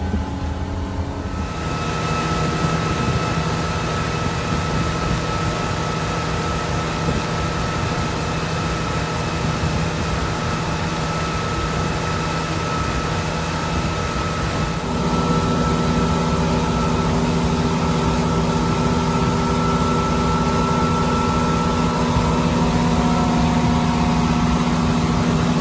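Motorboat engine running steadily under way, over a rushing haze of wind and water. The drone's tone shifts abruptly about a second and a half in, and again about halfway through.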